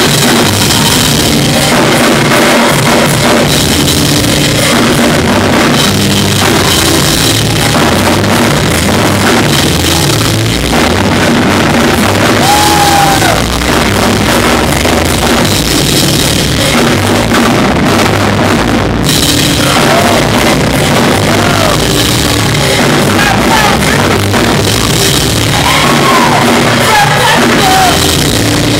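Live gospel praise band playing loudly, driven by a drum kit with the rest of the band behind it, and a few notes bent up and down in pitch in the second half.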